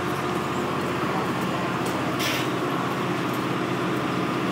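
Steady engine drone from a nearby idling vehicle or machine, with a brief hiss about two seconds in.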